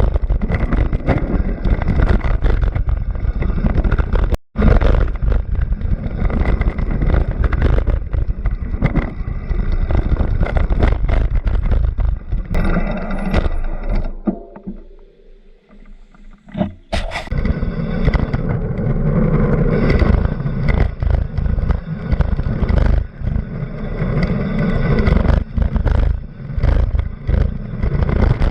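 Loud competition vehicle engine noise, rough and crackling. It cuts out abruptly for an instant about four seconds in, drops away for a couple of seconds past the middle, then comes back loud.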